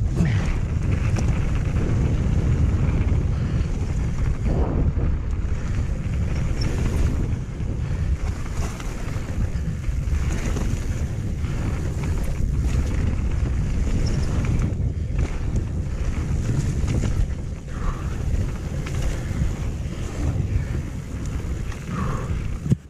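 Wind rushing over the camera's microphone as a mountain bike runs fast down a wet gravel trail, with a steady tyre rumble and scattered knocks from the bike over bumps. It eases a little in the last few seconds as the trail flattens out.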